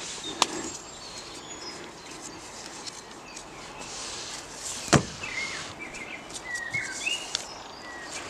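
Nylon hammock webbing being handled and pulled tight around a tree trunk, rustling, with a small click just under half a second in and a sharper, louder click about five seconds in. Birds chirp in the background, mostly in the second half.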